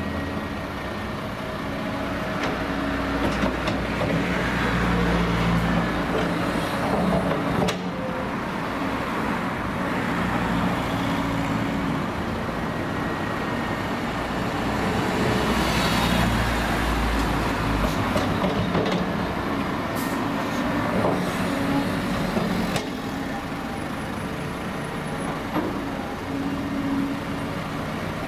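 Cat 323D tracked excavator's six-cylinder diesel engine working under load, swelling and easing as the boom and loaded bucket swing, with a few sharp knocks from soil and stones dropping into a dump truck's bed.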